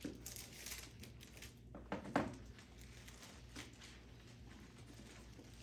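Bible pages rustling and turning, faint and scattered, with a brief sharp sound about two seconds in, over a low room hum.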